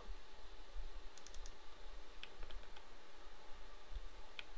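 Light clicks of a computer mouse and keyboard while working at a desk: a quick run of four about a second in, a few scattered clicks between two and three seconds, and one more near the end, over a faint low hum.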